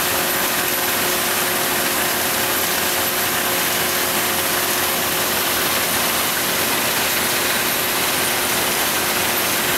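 Maxson paper sheeter running with a web of coated paper board feeding through it: a steady, even machine noise with a couple of faint steady hums.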